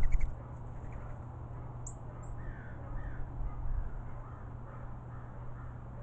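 A loud, brief burst of noise right at the start, then faint crows cawing, a run of harsh calls through the middle.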